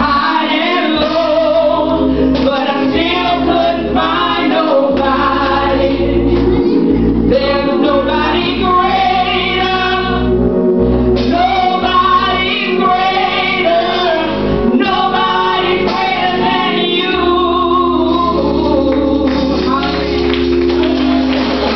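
A woman singing a gospel song into a microphone, with instrumental accompaniment underneath.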